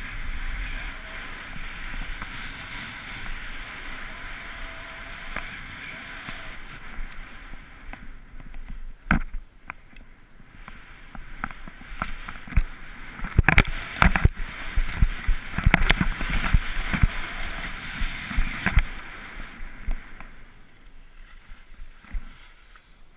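Skis sliding and hissing over snow, heard from the skier's own camera. From about eight seconds in, a run of sharp knocks and clatters joins the hiss; they come thickest around the middle and ease off near the end.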